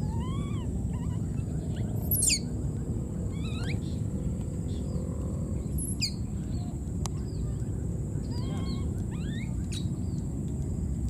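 Baby monkeys crying: short, high, arched squeaking calls in small runs of two or three, with a couple of sharper shrill downward cries, over a steady low rumble.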